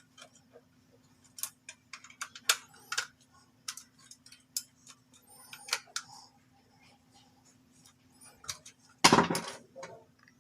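Irregular small clicks and taps of parts and a screwdriver being handled while a small device is taken apart, with a louder clatter about nine seconds in.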